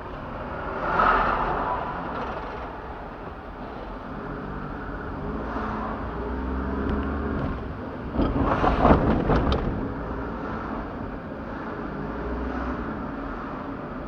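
Car driving, heard from inside the cabin: steady engine and road noise, with a quick cluster of knocks about eight seconds in as the tyres roll over the rails of a level crossing.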